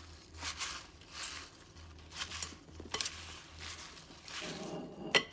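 Wooden utensils tossing raw kale leaves and chopped bacon in a glass bowl: repeated soft rustling swishes of the leaves, with a couple of sharp knocks against the bowl near the end.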